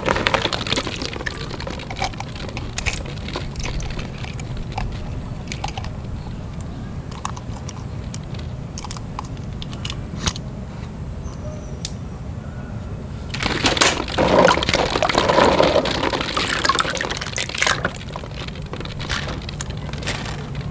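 Hands rummaging through plastic balls floating in a tub of water: light clicks of plastic balls knocking together and small splashes. About two-thirds of the way through there is a louder stretch of splashing and sloshing lasting a few seconds, all over a steady low hum.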